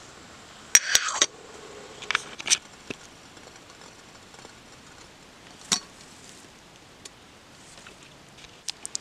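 Metal camp mug and its lid clinking and clattering as the lid is put on and the mug is handled and set down off a small folding stove: a loud cluster of clinks about a second in, a couple more soon after, one near the middle and light ticks near the end.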